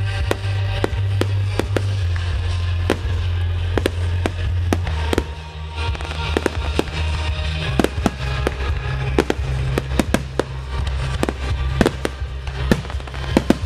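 Fireworks display: a dense, irregular run of shell bursts and crackles, heard over music with a low bass line.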